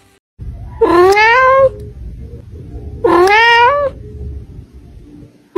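A cat meowing twice, each meow about a second long and rising in pitch.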